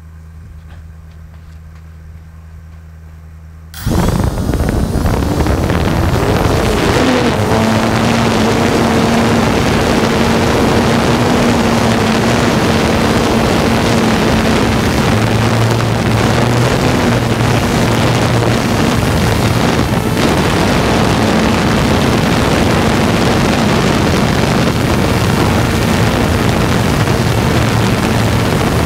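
Motors and propellers of a home-built 350-size quadcopter, heard from its onboard camera. A faint steady hum for about four seconds, then the motors spin up suddenly for takeoff into a loud steady buzz mixed with rushing air, its pitch wavering for a few seconds before it settles into an even drone.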